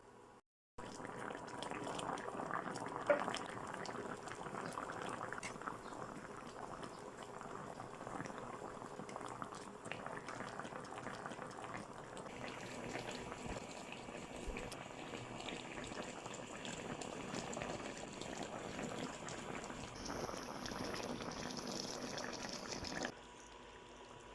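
Coconut milk sauce bubbling at a simmer in a pan, a steady dense bubbling with one sharp knock about three seconds in. The bubbling stops abruptly shortly before the end.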